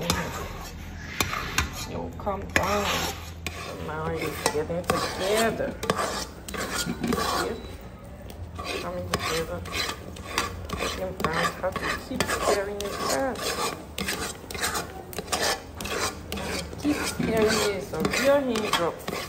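A spoon stirring and scraping a thick, browning milk-candy mixture against the sides and bottom of a metal cooking pot, in quick, uneven rasping strokes. The mixture is at the stage where it thickens and changes colour.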